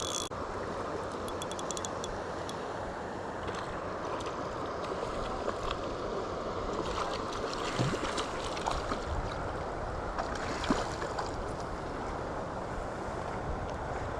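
Steady rush of the American River's flowing water, with a few faint clicks over it.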